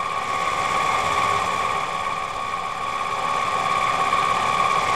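Mini lathe running steadily with a constant motor whine while a pivoting tip shaper cuts the radius on a spinning cue tip.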